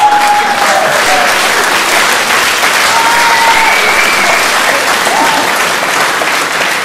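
Audience applauding steadily, with laughter and a few held cheers rising above the clapping.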